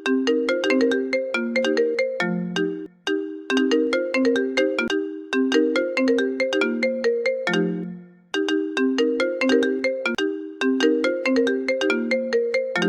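Mobile phone ringtone playing: a bright melody of quick notes, each phrase ending on a held low note, with a short break before it repeats about every five seconds.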